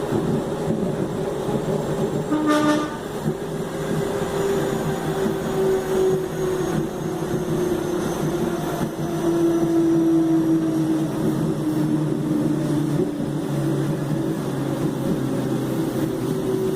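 Traction motors of a Mafersa/Hitachi 1700-series electric multiple-unit train whining over the steady running noise, the pitch slowly falling as the train slows. About two seconds in, a short pitched tone sounds over it.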